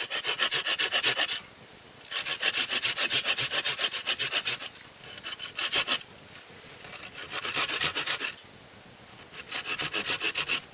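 A hand saw cutting through a thin wooden branch with quick back-and-forth strokes, in four bursts with short pauses between them.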